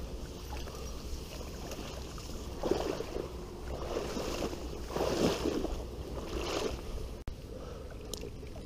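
Tall reeds and grass swishing and rustling against clothing and the camera as someone pushes through a dense reed bed on foot, in a few bursts through the middle, over a steady low rumble of wind on the microphone.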